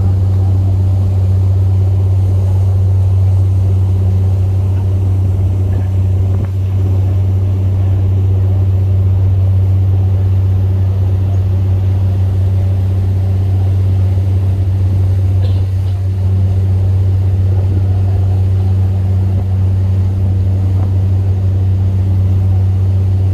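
Boat engine running at a constant speed, a loud, steady low drone that neither rises nor falls.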